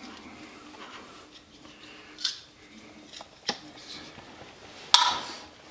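Wire dauber of a can of purple PVC primer scraping and tapping against a plastic PVC toilet flange and the can's metal rim: a few light clicks, then a sharper knock near the end.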